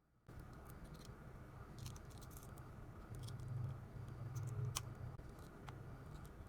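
Scattered light clicks and taps of small repair tools on a phone, over a steady low hum.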